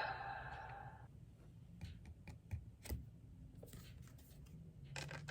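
Faint handling noise: a handful of light, scattered clicks and taps of small plastic toy pieces or cards being handled, as a louder sound fades out in the first second.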